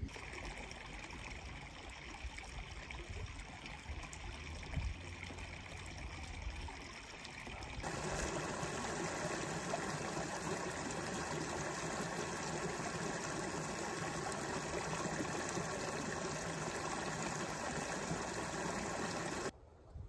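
Water flowing and trickling in a shallow brook. It is quieter, with a low rumble underneath, at first. About eight seconds in it becomes a louder, steady babble over stones, then cuts off shortly before the end.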